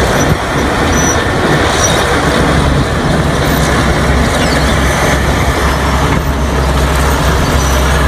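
Large crawler bulldozer working, its diesel engine running steadily with a heavy low rumble as it moves on its tracks.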